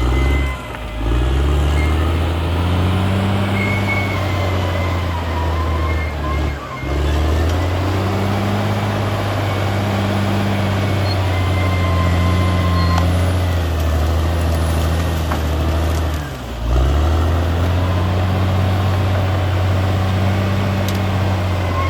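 Caterpillar D6R XL bulldozer's diesel engine running under load with a steady low drone. The engine note drops briefly three times before picking back up. Short high-pitched squeals come and go over it now and then.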